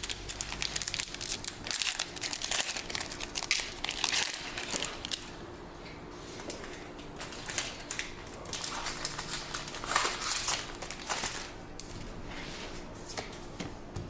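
Foil wrapper of a Pokémon Evolutions booster pack crinkling as it is torn open and handled, in clusters of crackles, thinning out for a couple of seconds mid-way before picking up again.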